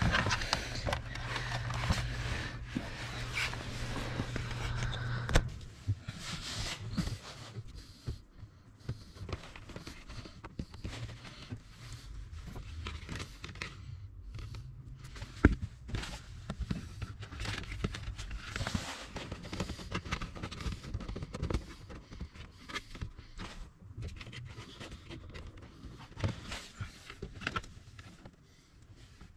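Handling noise of car wiring work: light rustling, scraping and small clicks as wires and plastic connectors are fitted under a car dashboard, with a couple of sharper ticks. A steady low hum runs through the first five seconds or so.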